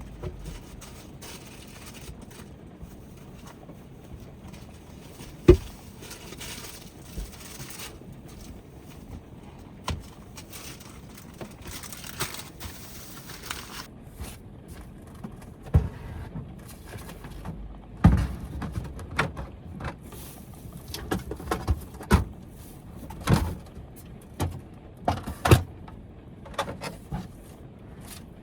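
Scattered knocks, clunks and light clatter of things being handled and set down inside a camper van, few at first and coming thick and fast in the second half, over a steady background hiss.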